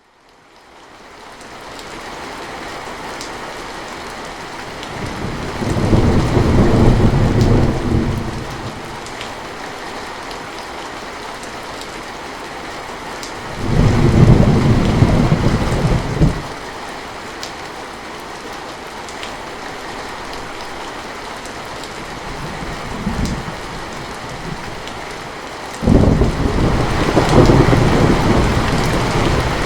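Thunderstorm: steady rain fading in over the first couple of seconds, with rolls of thunder about five and thirteen seconds in, a short rumble a little after twenty seconds, and another long roll starting near the end.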